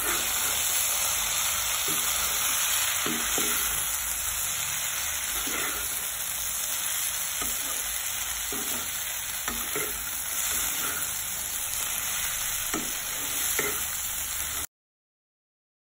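Flat-bean (canopy bean) stir-fry sizzling in oil in a kadai as it is tossed with a steel spatula, which scrapes and knocks against the pan now and then. The sound cuts off suddenly near the end.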